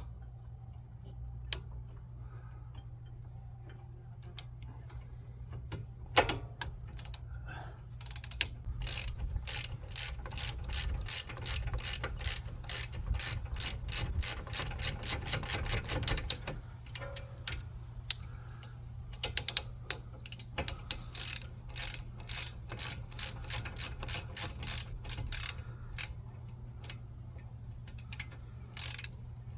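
Socket ratchet wrench clicking in long, fast runs of about five clicks a second as bolts are run in on a brake caliper assembly, with pauses between runs, over a steady low hum.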